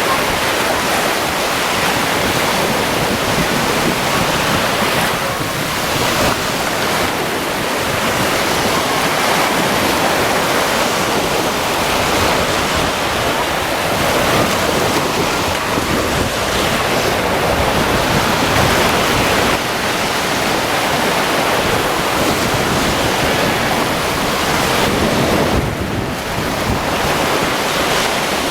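Caspian Sea waves washing onto the beach in a steady surf, with wind blowing over the microphone.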